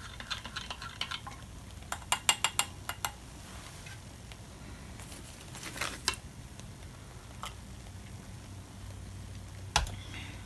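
Drinking glass handled while someone drinks from it: a quick run of small clicks about two seconds in, then a single sharp knock near the end as the glass is set back down on the table.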